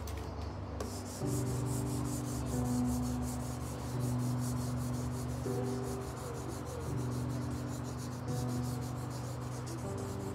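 A child scribbling fast on paper clipped to a wooden easel board: quick back-and-forth scratchy rubbing strokes, several a second. Soft background music with sustained chords plays underneath.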